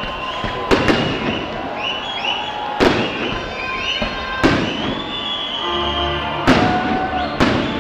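Aerial fireworks bursting: a sharp bang every second or two, about five in all, with short whistling glides in between.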